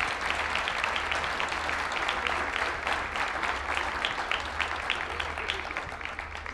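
Audience applauding: a dense, even patter of many hands clapping that dies away near the end.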